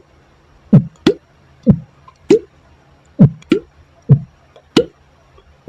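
Cartoon 'bloop' sound effects: about eight short popping notes, alternating between one that slides down in pitch and one that slides up, spaced roughly half a second to a second apart.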